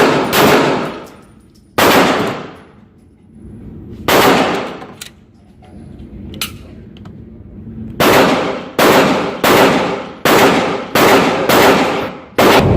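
Handgun shots on an outdoor range. Three are fired a second or two apart in the first four seconds; after a pause with a couple of faint clicks, a fast string of about eight follows from about eight seconds in, roughly one every two-thirds of a second.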